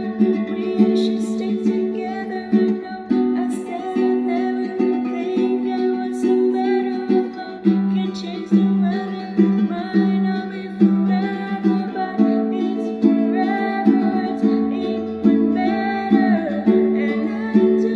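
Ukulele strummed steadily through a repeating four-chord progression, with a voice singing the melody over it.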